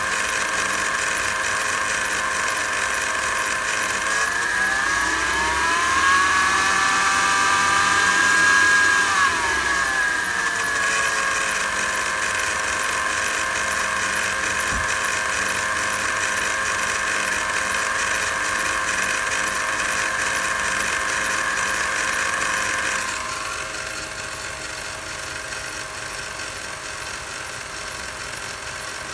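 Mercedes M273 V8 engine idling with a high-pitched chattering whine from the accessory belt drive. The engine is revved once, rising in pitch about 4 seconds in and falling back near 11 seconds. About 23 seconds in, the high-pitched sound drops away and the whole sound gets quieter. The owner later traced the noise to worn belt idler pulleys.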